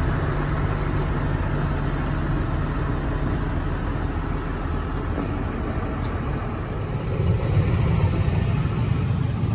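Fendt 936 Vario tractor's six-cylinder diesel engine idling steadily, a little louder near the end.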